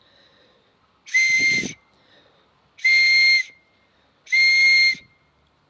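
Top piece of a pen blown as a whistle, with its tiny holes covered by a thumb: three short, shrill whistle blasts at one steady pitch, breath hiss mixed in.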